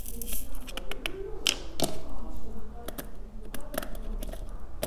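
Small Swarovski flat-back crystals clicking and rattling as they are tipped from a plastic triangle tray into a plastic compartment box, with sharp taps of a pick-up pen against the plastic.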